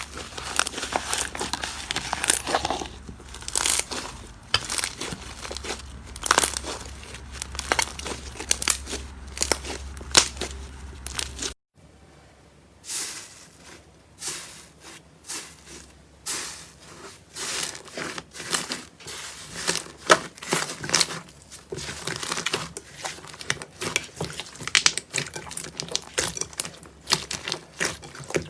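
Slime being squeezed, stretched and poked by hand, giving dense, irregular crackling clicks and pops. There is a sudden break about a third of the way through, after which the crackling carries on. A low steady hum sits under the first part.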